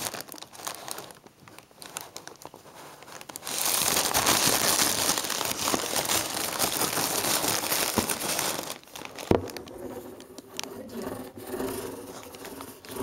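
Clear plastic packaging bag crinkling and rustling as it is handled, loudest for about five seconds in the middle.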